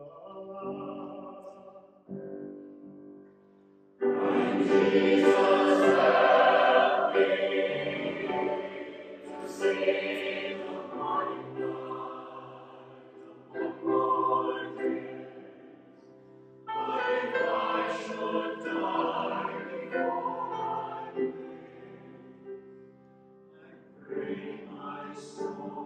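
Church choir singing, in phrases that break off and come back in, with a full, loud entry about four seconds in and another past the middle.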